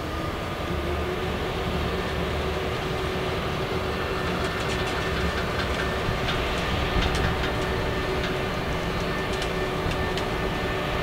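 BB 36000 electric locomotive hauling a freight train slowly past, with a steady hum from the locomotive and rolling wagons. From about four seconds in, scattered clicks and ticks come from the wheels on the rails.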